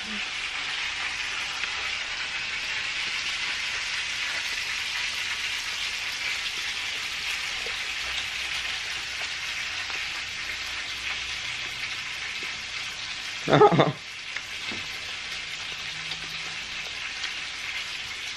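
Hot oil frying food with a steady sizzle. About three-quarters of the way through, a short loud vocal sound cuts in.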